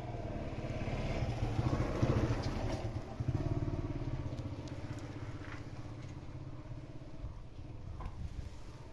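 A motor vehicle engine running close by, loudest about two seconds in and then growing steadily fainter.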